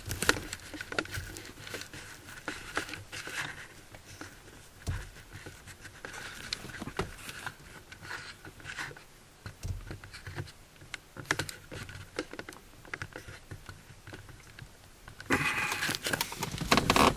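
Scattered clicks, taps and rustling, handling noise picked up by the camcorder's built-in microphone, with a louder rustle of about two seconds near the end.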